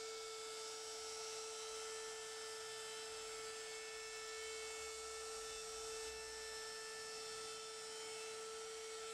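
DeWalt compact router running at a steady high speed with an even whine, routing out a hinge mortise in the wooden edge of a door through a hinge template.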